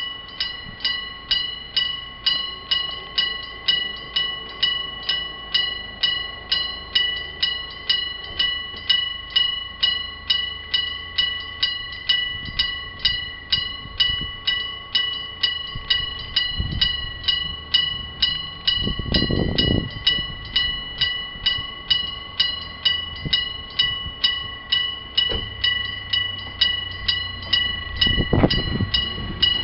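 Electric-bell level-crossing warning bell ringing steadily: a metallic gong struck over and over at an even, quick rate, each stroke ringing on. A short low rumble passes twice, about two-thirds through and near the end.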